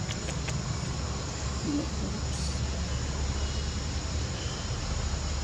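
Steady low rumble and hiss of outdoor background noise, with a few faint clicks just after the start.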